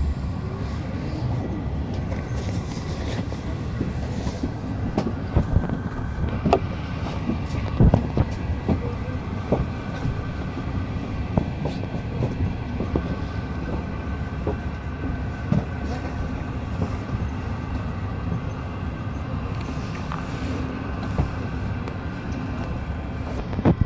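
Interior running noise of an MI09 RER A electric train: a steady low rumble with faint steady tones above it and scattered clicks and knocks from the track.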